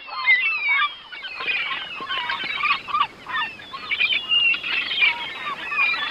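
A flock of birds calling, with many short, overlapping chattering calls throughout.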